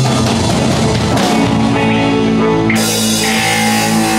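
Live rock band playing electric guitars, bass and drum kit. From about a second and a half in the guitars hold a sustained chord, and a cymbal crash comes in sharply a little past halfway and rings on.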